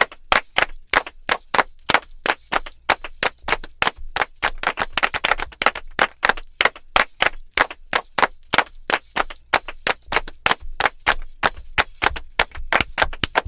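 Fast, even percussion: sharp strikes at about four or five a second, keeping a steady rhythm.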